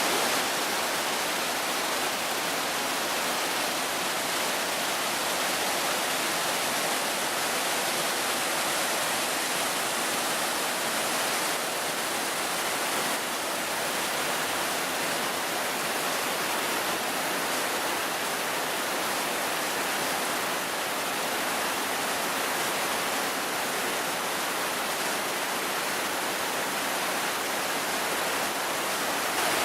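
Fukiware Falls on the Katashina River, its water rushing steadily as one even, unbroken hiss.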